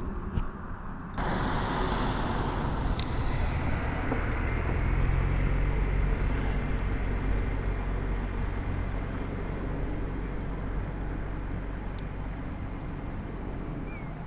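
A broad engine roar that comes in suddenly about a second in, with a low steady hum that swells in the middle and slowly fades.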